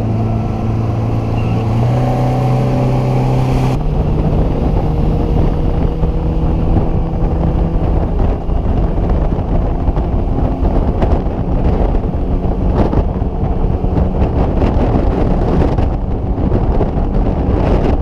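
Bass boat's outboard motor speeding up, its pitch stepping up twice in the first few seconds, then running steadily at speed, with wind on the microphone.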